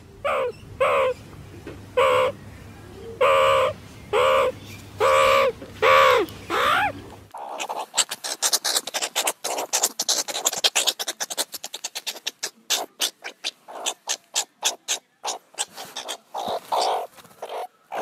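Meerkats calling: short, high repeated calls, about one or two a second, for the first seven seconds, then a fast run of clicking and chirping chatter.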